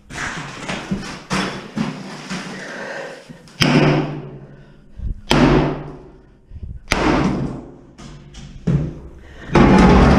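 Hammer blows breaking up a cast iron bathtub: about seven heavy hits, one every one to two seconds, each followed by a short ring.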